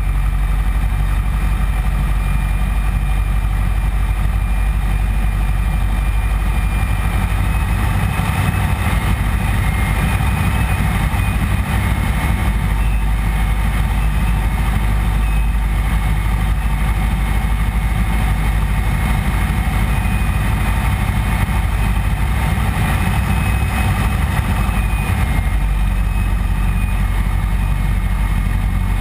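1948 Piper PA-15 Vagabond's small four-cylinder air-cooled engine and propeller running steadily in flight, heard from inside the cockpit.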